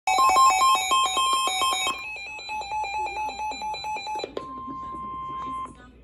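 NOAA weather alert radios sounding their alarms for a tornado warning: several units beep in rapid pulses at once. About two seconds in, one set of beeps stops and a single pulsed beep carries on. After about four seconds the beeping gives way to one steady tone that cuts off shortly before the end.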